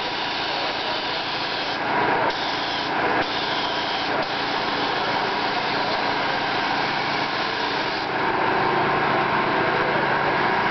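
Air-fed paint spray gun spraying a coating, a steady hiss of air and paint that gets a little louder about eight seconds in.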